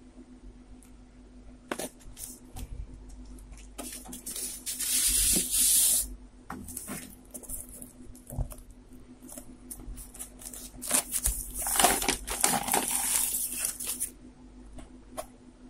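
Paper and cardboard rustling as a vinyl LP is handled and slid out of its paper inner sleeve: two longer rustles, about four seconds in and again near the end, with small taps and clicks between.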